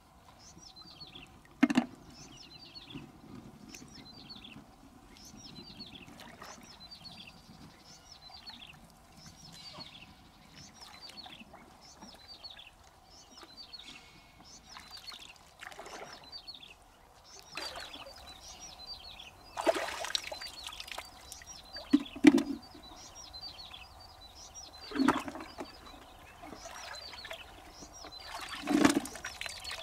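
Shallow water splashing and sloshing as mussels are gathered by hand from a muddy pond, with several louder splashes and knocks of shells handled at a plastic bucket. A bird calls over and over with short falling chirps, about one a second.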